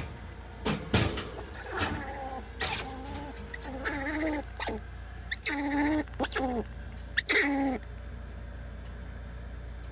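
Pet squirrel screaming at its owner in a string of about four harsh, pitched calls, which the owner puts down to her wet hair. A few knocks come about a second in.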